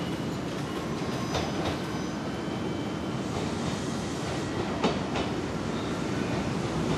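Kintetsu limited express train rolling slowly into a station platform. There is a steady rumble, and the wheels clack in pairs over the rail joints. A faint high wheel squeal comes about a second in.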